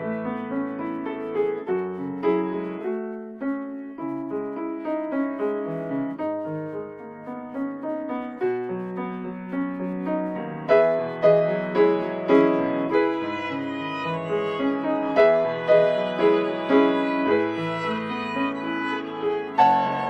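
Background music: piano with a bowed string (violin) line, growing fuller and louder about halfway through.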